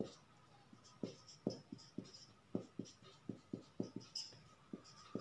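Felt-tip marker writing on a whiteboard: a run of short, faint strokes, about four a second, as letters are drawn.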